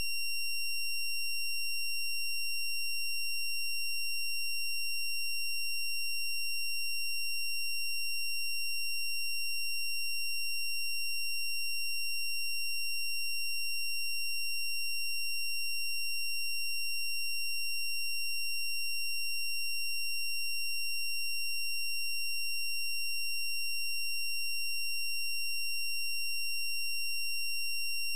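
A steady, unchanging high-pitched electronic tone, with fainter higher tones above it.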